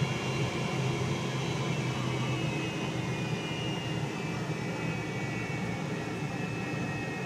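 Steady cabin drone of an MD-80 airliner on the ground, heard from inside the passenger cabin: its rear-mounted Pratt & Whitney JT8D jet engines give a low hum with a thin, steady high whine over it.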